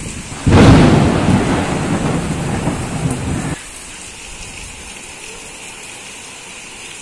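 A thunderclap breaks in about half a second in and rumbles for about three seconds, then cuts off suddenly. After that comes a steady, fainter hiss of rain.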